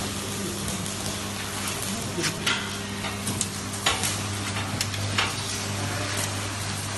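Steady electric hum of a vertical fiber baler's motor running, under a hiss of noise, with a few sharp clicks and knocks scattered through the middle.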